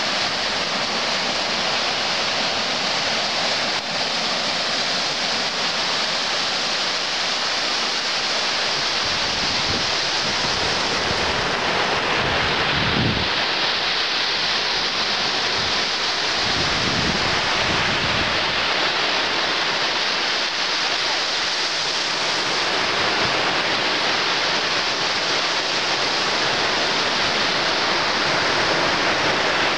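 Sea surf breaking and washing up on a sand-and-pebble shore, a steady rushing. Wind buffets the microphone with low gusts between about ten and eighteen seconds in.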